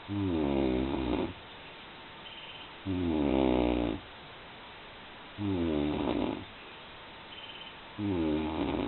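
A person snoring heavily: four long rattling snores, each about a second, coming about every two and a half seconds. A faint short whistle sounds in two of the gaps between snores.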